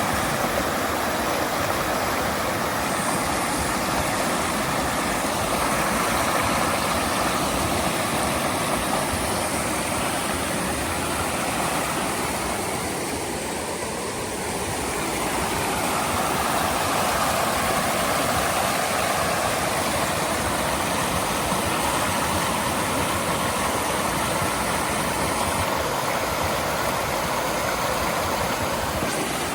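Steady rushing of flowing water, as from a stream or small waterfall, dipping slightly for a moment near the middle.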